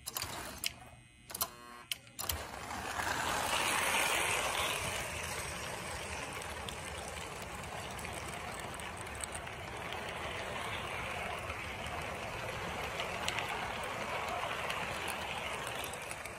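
1954 American Flyer S-gauge steam locomotive and its train of freight cars: a few sharp clicks at first, then a steady rattle of wheels and gearing on the track as the long consist rolls past, easing a little near the end.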